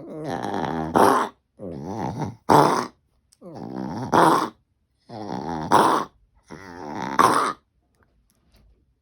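A dog coughing in five fits, about one every second and a half. Each fit is a drawn-out rasping sound that ends in a sharp, loud hack.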